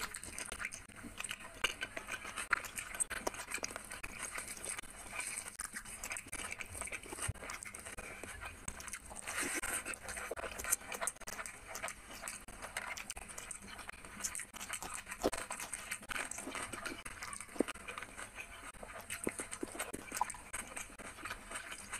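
Close-miked eating sounds: a person chewing and smacking mouthfuls of rice and chicken curry eaten by hand, an irregular stream of small clicks and crackles.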